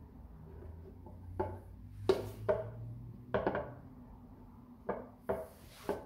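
Metal clutch cover knocking and clicking against the engine case as it is pressed into place by hand: a series of short separate knocks over a low steady hum.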